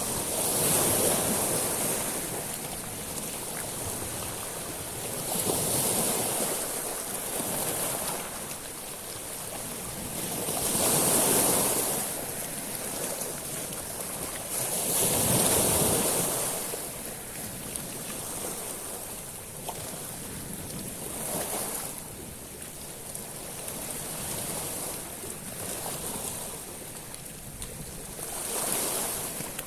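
Sea waves surging up a beach of small stones and drawing back, with the pebbles rattling and hissing at each wave. The waves swell and fall every four to five seconds, the larger ones in the first half and smaller ones later.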